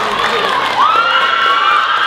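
Crowd of many young voices cheering and screaming at once, loud and steady, with one voice sliding up in a whoop a little under a second in.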